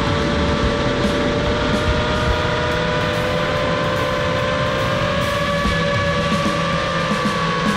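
The four brushless motors and propellers of a 5-inch FPV quadcopter (iFlight Xing-E Pro 2207 2750kv motors, Ethix S5 props) whining steadily in cruising flight, their several close pitches drifting slowly up and down, over a rough rumble of rushing air, as picked up by the camera on board.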